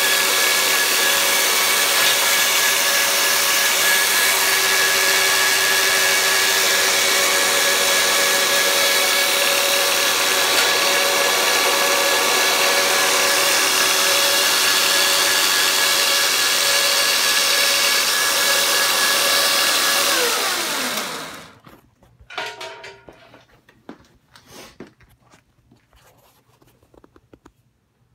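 Homemade 2x72-inch belt grinder running steadily on its 2 hp, 1800 rpm electric motor: a steady hum of several tones over a broad hiss. About twenty seconds in it winds down, its pitch falling away to quiet, and a few faint clicks and knocks follow.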